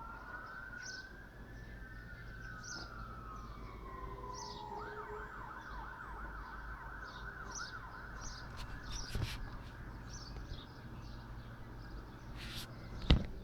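Two fire engine sirens sound together, one rising while the other falls in a slow wail; about five seconds in they switch to a fast yelp of roughly five sweeps a second, which fades away. Birds chirp throughout, and a single sharp click near the end is the loudest sound.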